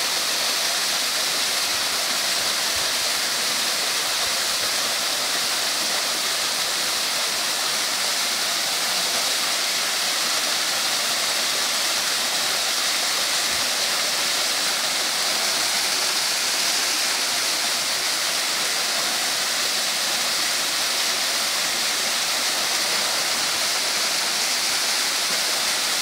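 Small waterfall pouring over rock into a shallow pool: a steady, even rush of falling water.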